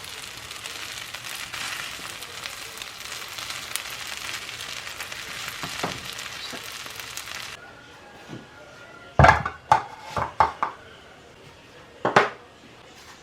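Kimchi fried rice sizzling in a hot pan for about seven seconds, then cutting off. Several sharp clanks of metal utensils on dishes follow.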